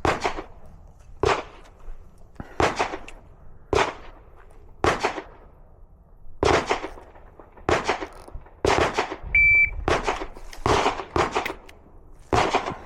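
A string of handgun shots, more than a dozen at uneven intervals of about a second or less, fired as a drill of pairs on several targets with a reload. A short, steady high beep sounds about two-thirds of the way through.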